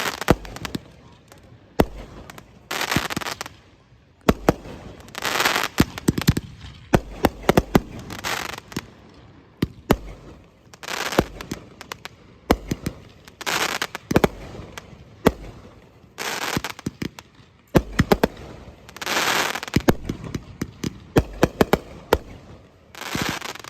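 A fireworks display: sharp bangs of bursting shells in quick clusters, with a hissing, crackling burst about every two to three seconds.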